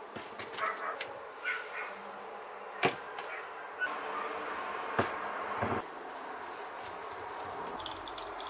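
Handling on a workbench: a clear plastic tub is set down and the rusty iron hair tongs are placed in it, giving a few sharp clicks and knocks, about three seconds in and again about five seconds in, over a faint steady hiss.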